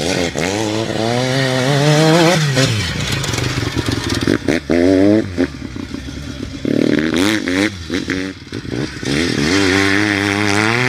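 Single-rotor Wankel engine of a Hercules rotary dirt bike being ridden hard. It revs up in several rising pulls, and the pitch drops back between them as the throttle is eased or a gear changes.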